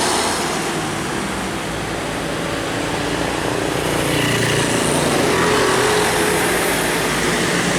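Road traffic: a passing vehicle's engine running with tyre and road noise, the noise dipping slightly early on and building again toward the middle.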